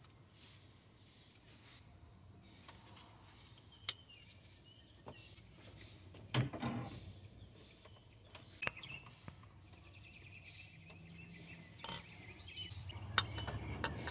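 Faint birds chirping, with scattered light clicks and knocks from hand work on the engine, the loudest knock about six seconds in. A low rumble rises toward the end.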